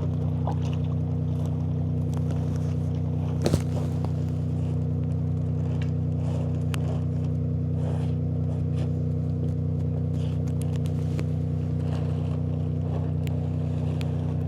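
A farm vehicle's engine running steadily at constant speed, with faint scraping and rustling and one sharp knock about three and a half seconds in.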